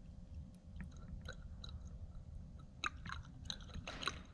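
Thin plastic cup crinkling and crackling as it is squeezed and tipped to pour fuel into a carburetor. The crackles are scattered at first and come thickest in the last second and a half.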